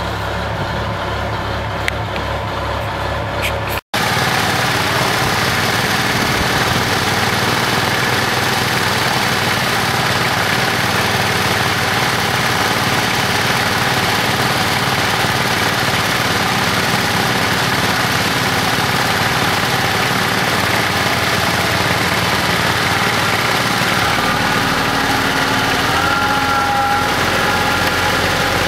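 A vehicle engine idling for the first few seconds, then the Kubota L3400 compact tractor's diesel engine running steadily. Near the end its note changes, and new higher tones come in, as the front loader lifts a log round on pallet forks.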